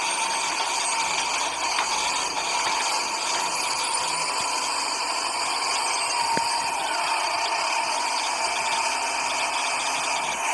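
A small geared mechanism running steadily with a rattle, with a faint steady whine.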